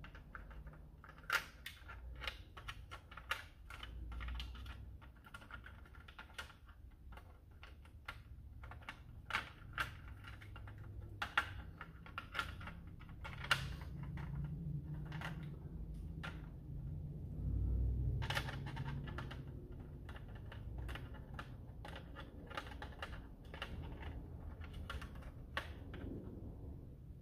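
Plastic parts of an X-Shot Longshot foam-dart blaster being handled and tried together, giving irregular light clicks and taps with a few dull low bumps.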